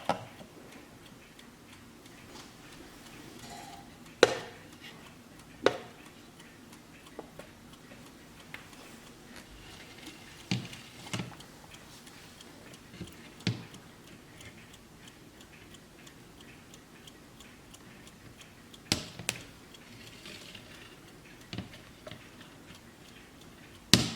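Warmink mantel clock movement ticking steadily, with a few louder, irregularly spaced knocks over it.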